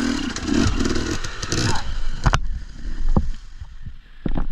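Motorcycle engine running for the first couple of seconds, then a sharp knock and scattered clatter and scrapes as the bike is handled.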